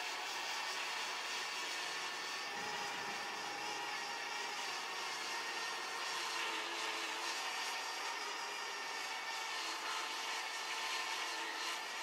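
Parrot Bebop 2 quadcopter's propellers humming steadily in flight, a whine made of several held tones.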